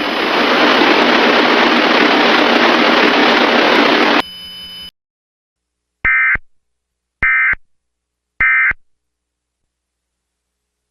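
A steady hiss of static for about four seconds that cuts off, then the Emergency Alert System end-of-message code: three short, identical bursts of shrill digital data tones about a second apart, marking the end of the alert.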